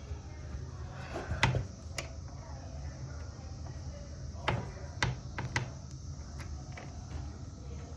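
A handful of sharp knocks and clicks, about six spread irregularly over several seconds, over a steady low hum.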